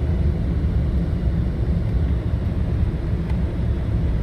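Steady low rumble of a Toyota Tacoma pickup driving on a snow-covered road in four-wheel drive: engine and tyre noise.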